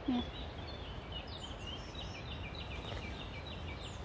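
A songbird singing: a quick run of short, high, repeated notes from about a second in, over a steady low outdoor rumble. A brief voice sound right at the start.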